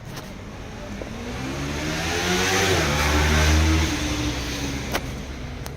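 A motor vehicle drives past close by. Its engine sound swells to a peak about three and a half seconds in, the pitch falling as it goes by, then fades.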